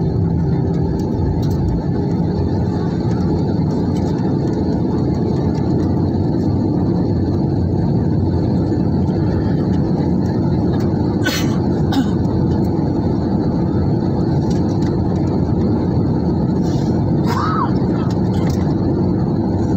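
Steady cabin noise of a jet airliner in flight, the turbofan engines and rushing air heard from a window seat, even and unchanging. A couple of faint clicks come about eleven and twelve seconds in.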